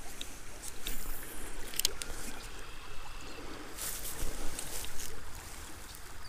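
Small creek running over a riffle, with wind rumbling on the microphone and a few short clicks and rustles of handling.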